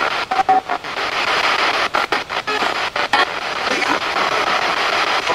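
Radio static hissing steadily, chopped by frequent short breaks with brief snatches of tone, as a spirit box makes when it sweeps rapidly through radio stations.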